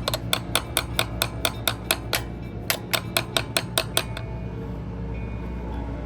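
Small hammer tapping a steel center punch, metal on metal, in a quick even series of light strikes, about four a second, that stop about four seconds in. The punch is driving vent and drain holes into a motorcycle oil filter.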